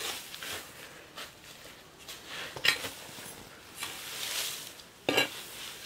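Dry straw chaff rustling and scraping as it is scooped up by hand off the floor and pushed into a woven wicker basket, with two louder scrapes about two and a half and five seconds in.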